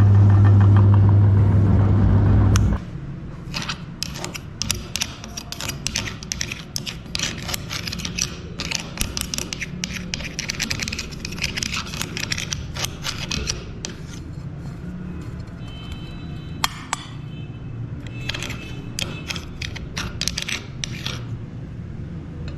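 Electric meat grinder motor humming steadily, cutting off abruptly about three seconds in. It is followed by a long run of crackly scraping and rapid clicks, with a few brief ringing clinks.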